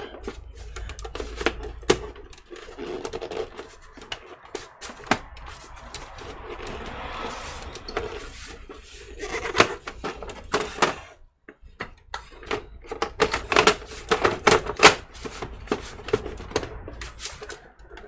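Irregular clicks and knocks of gloved hands handling and pressing on the side panel of an Alienware X51 R2 desktop case, with a brief rubbing sound about seven seconds in.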